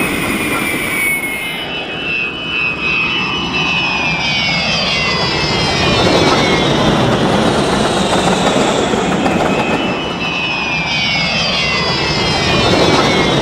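Sound-fitted model of the English Electric GT3 gas turbine locomotive running with a steady jet-like turbine whine over the rumble of its wheels on the track. The sound sweeps down in pitch twice as the locomotive goes by.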